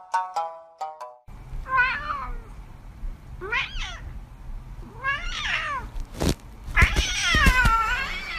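A run of bright, quick chiming notes stops about a second in. A cat then meows four times in long, wavering calls, the last one drawn out the longest, with a sharp knock just before it.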